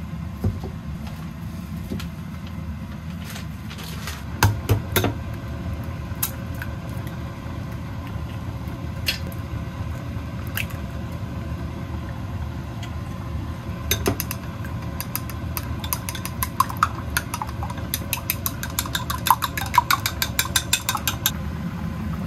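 A steady low rumble, like a running vehicle engine, with a few sharp clicks about four seconds in and a fast run of light clicks and clinks in the last several seconds.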